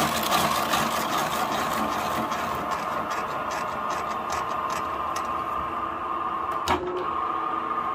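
Wood lathe on automatic feed, its cutter boring out the inside of a pine log, with a steady machine hum under a hiss of cutting and rapid ticks. The cutting hiss thins out after a single sharp click about seven seconds in, while the motor keeps running.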